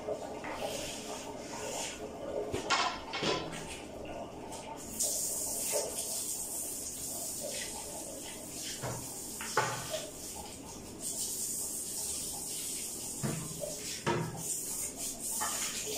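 Cleaning in a tiled bathroom: scattered knocks and scrapes of cleaning tools against tile and fixtures. A steady hiss runs from about five to eleven seconds in and starts again near the end.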